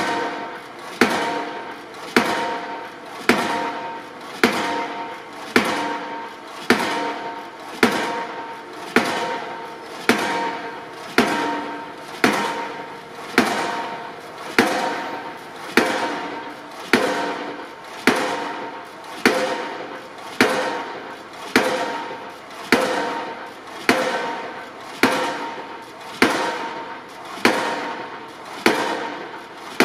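Impact pile hammer driving a steel H-beam into the ground, striking about once a second in a steady rhythm. Each blow is a sharp bang followed by the beam's metallic ring, which dies away before the next blow.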